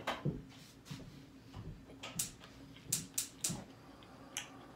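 Close-up eating sounds of a taco being chewed: a series of short, sharp crunches and mouth clicks, about eight of them spread unevenly over a few seconds.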